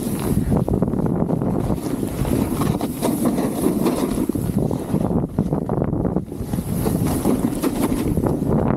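Gnu Headspace snowboard sliding and scraping through soft, chopped-up snow, a continuous, uneven rushing with wind buffeting the body-mounted microphone.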